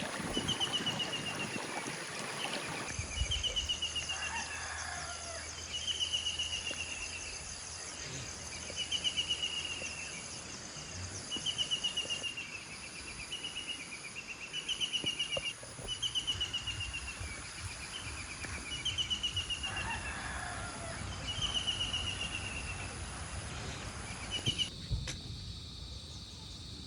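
Rural bird ambience: a bird repeating a short, slightly falling trill about every two to three seconds, with a rooster crowing twice.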